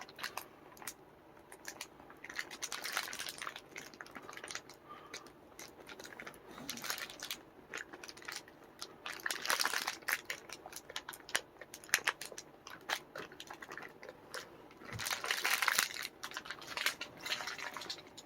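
Plastic food bag crinkling and rustling as it is handled and pressed closed, in irregular bursts of crackles and clicks, the longest near the end.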